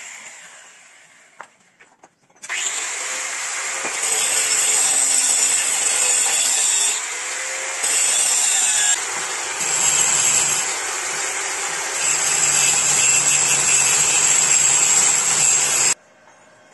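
Angle grinder cutting metal. A short burst at the start fades away, then from about two and a half seconds in comes a long, loud, high-pitched grinding that dips and swells a few times as the disc bites into the work, cut off suddenly near the end.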